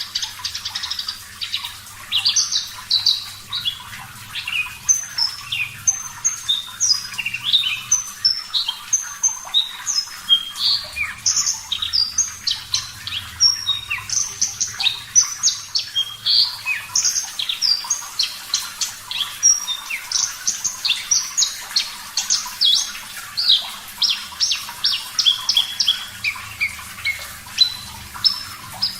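Javan bushlark (branjangan) in full song: a long, rapid, unbroken run of varied short chirps, trills and high whistled notes, several a second. A faint steady wash of running water sits underneath.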